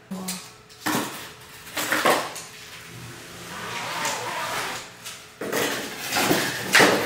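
Handling noise: knocks, clatter and rustling as objects are picked up and moved. There are sharp knocks about one and two seconds in, and a louder run of knocks and scraping in the last second and a half.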